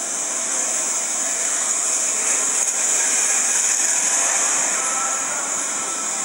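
Steady, high-pitched hiss of background noise with no speech.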